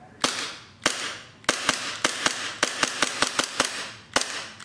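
Elite Force Glock 19 gas-blowback airsoft pistol firing, each shot a sharp pop with the slide clacking back. Two single shots, then a quick string of about ten shots at roughly five a second, then one or two more near the end.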